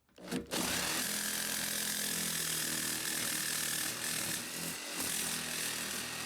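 Jigsaw cutting a square hole in a sheet-metal plate. The saw starts about half a second in and runs steadily, with a steady high whine over the rasp of the blade in the metal.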